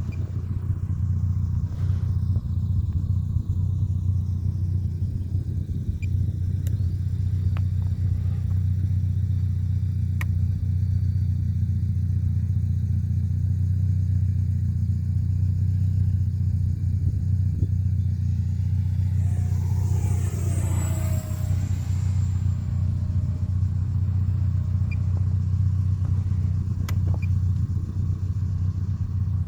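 Arrows F-86 Sabre electric ducted-fan RC jet making a fly-by about 19 seconds in: a whine that sweeps up and then falls in pitch as it passes. Under it, a loud steady low rumble runs throughout.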